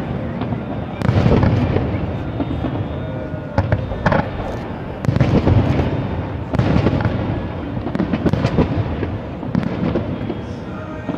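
Aerial firework shells bursting one after another, a deep boom every second or two, some with sharp cracks.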